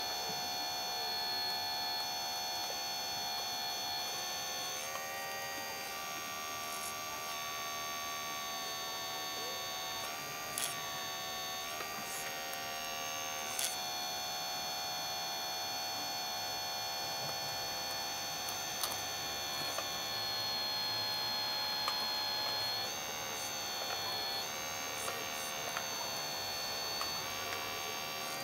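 Electric motor and hydraulic pump of a large-scale RC hydraulic excavator running with a steady whining hum, its pitch shifting a little several times as the arm and bucket work. A few short clicks come through in the middle.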